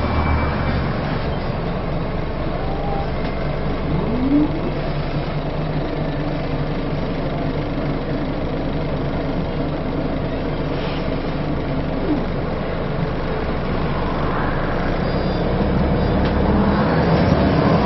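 Inside a Scania L94UA Wright Solar Fusion articulated bus on the move: the engine and driveline run with a steady rumble, and a couple of brief gliding tones sound about a third of the way in and again past the middle. The rumble grows fuller and louder near the end.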